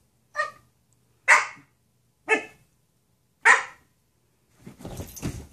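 A dog barking four times, short single barks about a second apart, aimed at a cat sitting in the dog's chair to make it get out. Near the end there is a quieter rustling scuffle.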